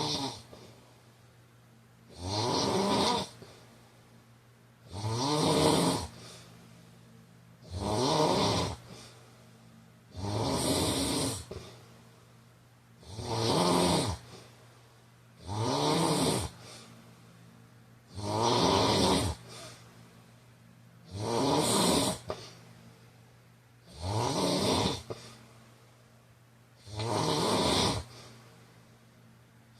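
A man snoring steadily and rhythmically, about one snore every two and a half to three seconds, ten in all. Each snore lasts about a second and rises slightly in pitch.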